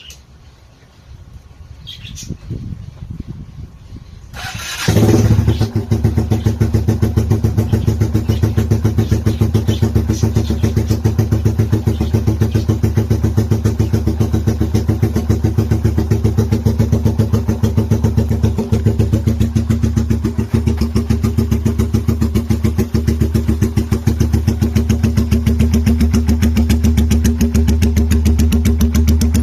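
Keeway Super Shadow motorcycle with a full aftermarket exhaust system starting up about five seconds in, then idling steadily with an even exhaust beat.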